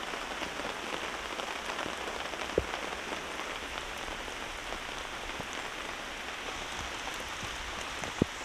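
Steady rain falling, with a few louder single drops landing close by, one about two and a half seconds in and another near the end.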